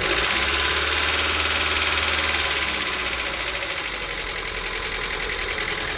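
Lada Xray engine running just after a start, with a fast, even knock ticking through it like an engine run without oil. The speed drops a little about three seconds in as the idle settles. The mechanic puts the knock down to the oil pump not working.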